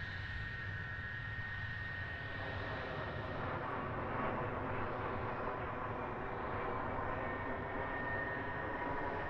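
Jet aircraft engines running: a steady whine with several high tones over a low rumble, holding an even level.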